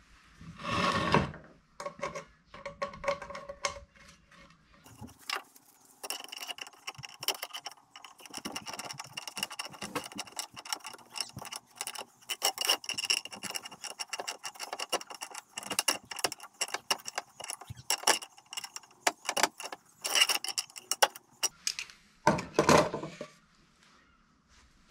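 Metal-on-metal clinking and scraping as threaded pipe fittings are worked into holes in a frying pan with locking pliers, with a faint ringing under the clinks. Two louder knocks, one about a second in and one near the end.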